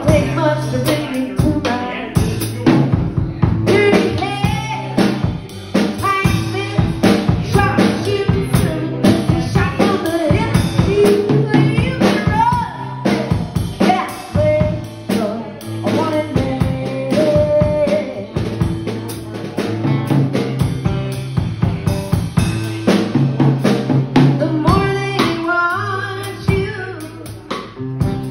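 Live band music: an acoustic-electric guitar with a drum kit keeping a steady beat of kick, snare and rimshots, and a woman singing over it.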